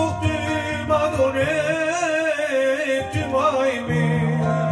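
A man sings held, wavering notes without clear words over an acoustic guitar playing chords and bass notes.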